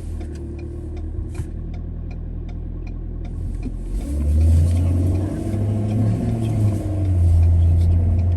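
Car heard from inside the cabin: steady low engine and road hum, with a turn-signal indicator ticking about twice a second until about three and a half seconds in. Then the engine pulls harder and the hum grows louder as the car accelerates.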